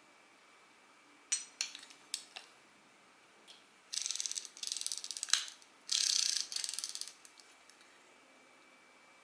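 Small metal reel mechanism ratcheting: a few sharp separate clicks, then three runs of fast, dense clicking, like a spinning reel's gearing and anti-reverse being worked by hand.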